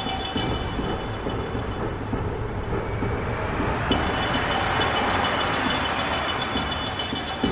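Train running on rails: a steady rumble with fast, regular clicking and a thin high whine. The clicking and whine drop out about half a second in and come back about four seconds in.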